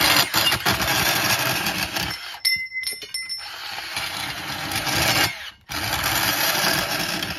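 Cordless portable bandsaw cutting through a bundle of ten iron balusters at once. The cut stops twice briefly, about two and a half and five and a half seconds in, with a short ringing tone during the first pause, then resumes.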